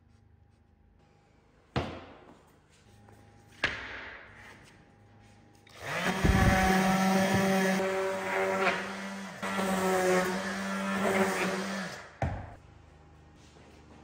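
Two sharp knocks, then a DeWalt random orbital sander runs for about six seconds with a steady motor hum, sanding a thin wooden trim strip. It stops, and a knock follows as the sander is set down on the table.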